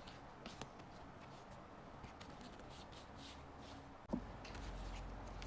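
Faint rustling and light ticks of photocards being handled, with a sharper knock about four seconds in.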